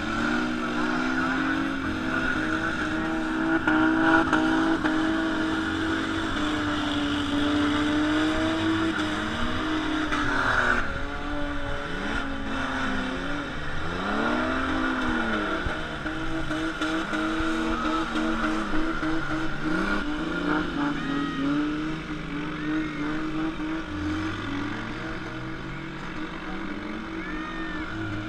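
Demolition derby car engines running, with a steady engine drone under repeated revs that rise and fall several times.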